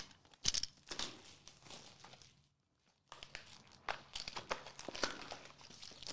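Cellophane shrink wrap crinkling and tearing as it is pulled off a sealed trading card box, with a short pause about two and a half seconds in, then more crinkling as the foil packs are handled.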